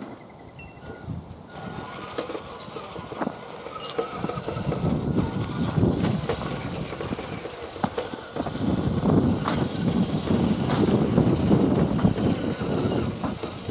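Axial SCX10 RC crawler's electric motor and gears whirring as it drives over dirt and gravel, with a faint steady whine setting in about a second and a half in and the tyres crunching over the ground.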